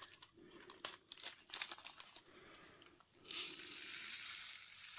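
Small plastic zip bag handled with light clicks and crinkles, then, about three seconds in, a steady rattling hiss lasting about two seconds as square acrylic diamond-painting drills are poured from the bag into a plastic drill tray.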